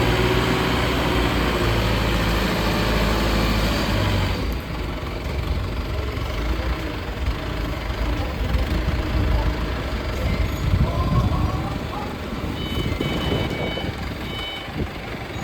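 A heavy vehicle's engine running, loud and steady for the first four seconds, then lower and rougher. Near the end a reversing alarm starts beeping in short, evenly repeated beeps.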